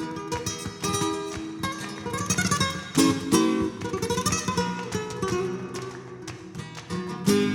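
Background music led by fast plucked acoustic guitar in a flamenco style, with strong strummed accents about three seconds in and again near the end.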